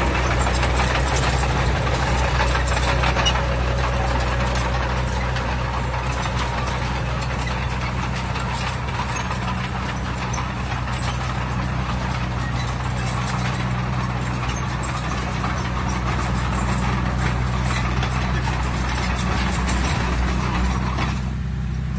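Heavy diesel engine running steadily, with a constant low hum under a rough, noisy clatter; the higher clatter drops away briefly near the end.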